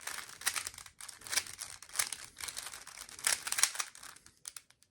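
Rubik's Cube being turned by hand in quick, irregular runs: the plastic layers click and rasp as they rotate.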